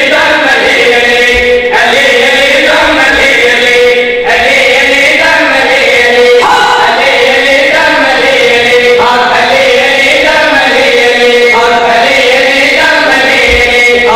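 A man's voice chanting a melodic zakir's recitation into a microphone, amplified over a PA. The phrases are long held, wavering notes broken by short pauses every few seconds.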